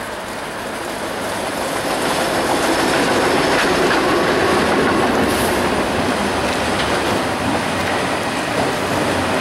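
Freight train passing close by: the sound builds over the first two seconds as the lead diesel locomotives, an EMD SD70MAC and a GE ES44DC, go by. It then holds steady as a long string of autorack cars rolls past on their wheels.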